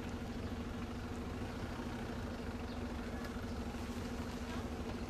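Fire engine running steadily to power its Magirus aerial ladder, a constant droning hum at one pitch.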